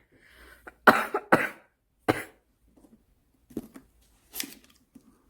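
A woman's smoker's cough in a fit: a drawn breath, then three hard coughs close together about a second in, followed by softer coughs near the end.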